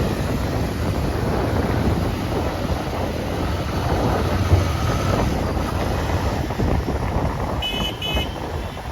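Motorcycle ride through traffic: steady engine and road noise with heavy wind buffeting the microphone. Two short high beeps come near the end.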